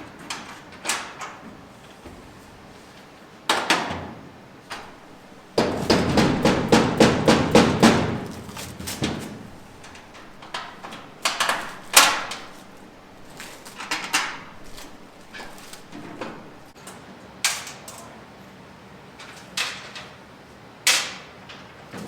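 Metal clanks and knocks from sheet-metal truck bed parts being fitted and bolted together, with a quick run of repeated strikes about six seconds in that lasts a couple of seconds.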